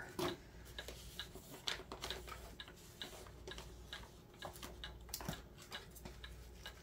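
Faint, irregular light clicks and ticks, a few each second, over a low steady hum.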